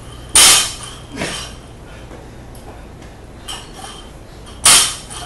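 Loaded barbell with bumper plates coming down on a rubber lifting platform twice, about four seconds apart, each a loud thud with the clank and ringing of the bar and plates. A lighter knock follows the first about a second later.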